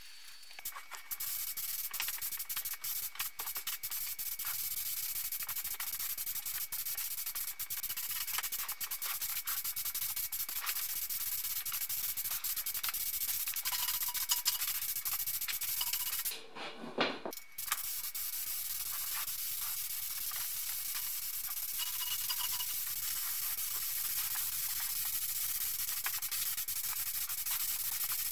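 Gravity-feed spray gun hissing steadily as it sprays paint, with a break of about a second a little past halfway before the hiss resumes.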